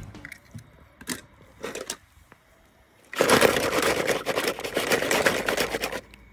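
A few light knocks, then about three seconds in a dense rattling clatter of many toy cars knocking together in a plastic basket, which cuts off suddenly near the end.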